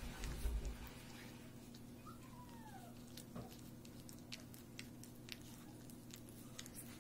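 Yellow Labrador puppy eating soft food: small wet clicks of chewing and lapping, with one short high whine that rises and falls about two seconds in. A low thump in the first second.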